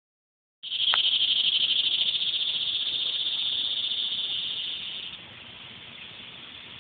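Cicadas singing: a loud, high, pulsing buzz that drops to a softer level a little after five seconds in.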